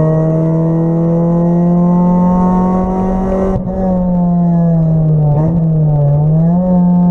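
Acura Integra race car's engine heard from inside the stripped cabin, pulling hard with its pitch slowly climbing. About three and a half seconds in the note suddenly softens and the pitch sags, dipping low before rising again near the end.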